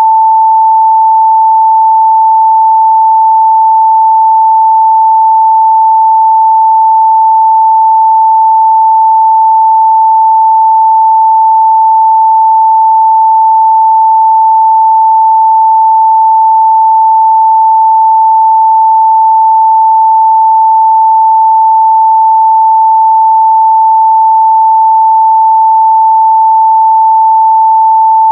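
A steady, loud 885 Hz sine-wave test tone, one pure pitch held without a break.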